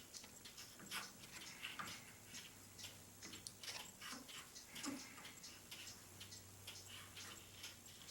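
Faint, irregular small clicks and taps of small pen parts and tools being handled on a workbench, a few each second, over a faint low hum.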